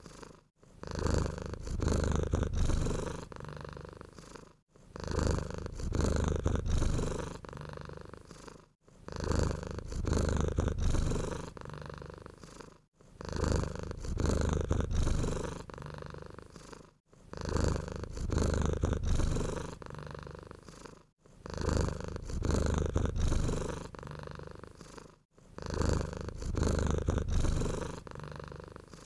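Domestic cat purring close up, in even cycles of about four seconds: each swells loud and then fades, with a brief break before the next.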